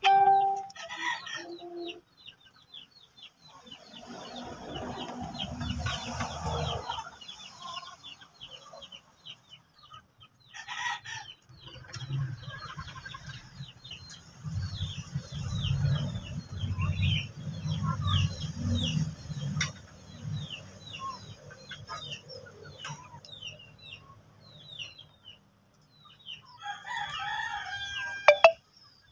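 Chickens clucking and a rooster crowing, over many short high chirps from small birds. A sharp clatter comes near the end.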